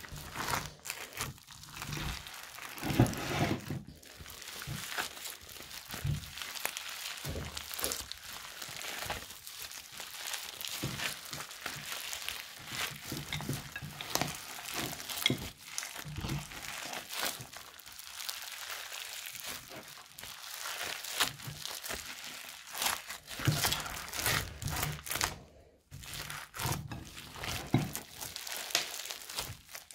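Slime thick with foam beads being squeezed and kneaded by hand, the beads crackling and crunching in dense, irregular bursts, with a short lull about three-quarters through.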